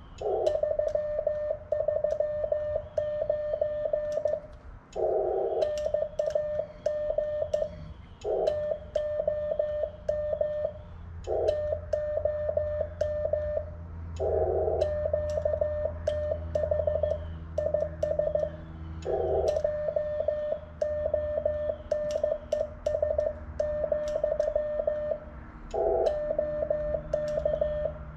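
Morse code (CW) being sent by hand on a paddle, heard as the transceiver's sidetone: a single beep of about 600 Hz keyed into dits and dahs, with light clicks from the paddle. It spells out a signal report of 339, the name Tom and the location Jones, Oklahoma, ending with AR BK to hand the contact back.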